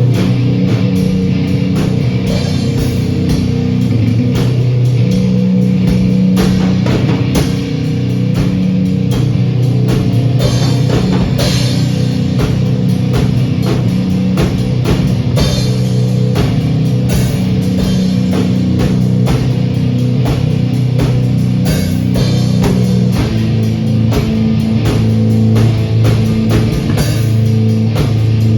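Rock band jamming: electric guitar and bass holding low notes that change every few seconds over a steady drum-kit beat.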